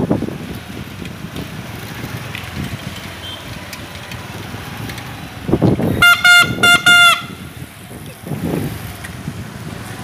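Bicycle air horn mounted on the handlebar, sounded in three quick honks about six seconds in, each a steady bright tone that sags in pitch as it cuts off, over street noise.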